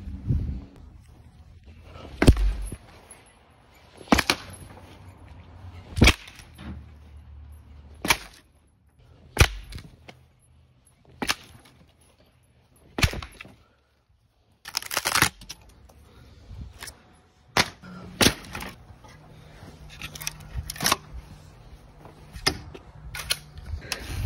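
Heavy sharp knocks on the old wooden playset's timber frame as it is beaten apart, about one every two seconds and coming faster in the second half.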